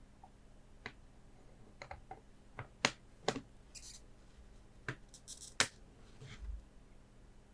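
Gloved hands handling plastic card frames and Pokémon cards: scattered sharp clicks and taps, with two brief high rustles.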